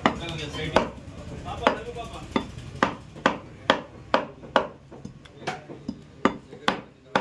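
Butcher's cleaver chopping mutton on a chopping block: a steady run of sharp chops, coming faster after the first few seconds, at roughly two to three a second.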